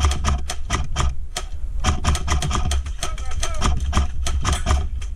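Airsoft guns firing in rapid, irregular clicking shots, several a second, over a steady low rumble of movement on a helmet-mounted camera.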